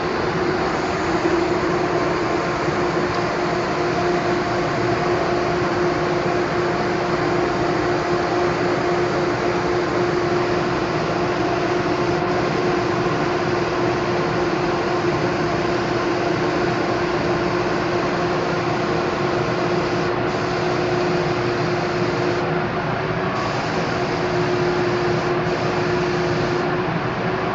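Paint-spraying rig's compressor running steadily, a constant air hiss with a steady hum, as clearcoat is sprayed through the gun with its air cap changed.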